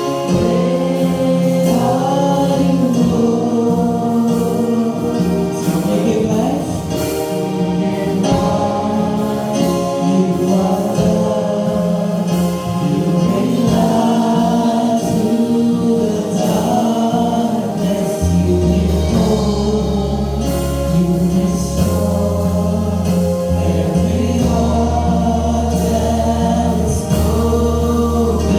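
Choir singing a gospel song with instrumental accompaniment; a deep bass line comes in about two-thirds of the way through.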